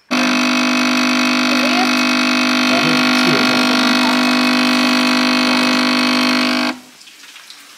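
Espresso machine's pump buzzing steadily while it brews a shot, cutting off suddenly near the end.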